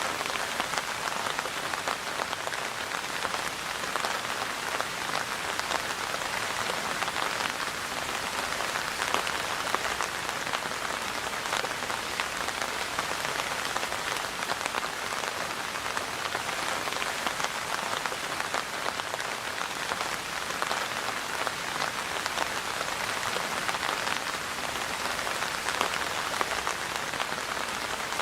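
Steady rain falling and pattering on surfaces, a dense even hiss of many small drop impacts.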